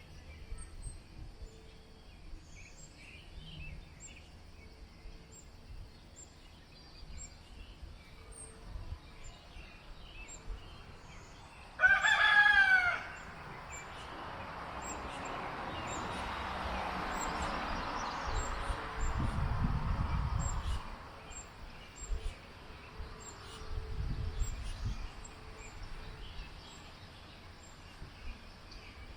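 A rooster crows once, loud, about twelve seconds in, over faint chirping of small birds. Afterwards a long rushing noise swells and fades, with low rumbling on the microphone.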